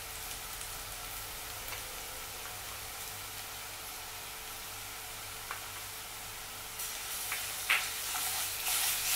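Chopped onions and curry leaves sizzling in hot oil in a nonstick frying pan as ginger-garlic paste is stirred in, with a wooden spatula scraping and tapping against the pan. The sizzle and stirring get louder about seven seconds in.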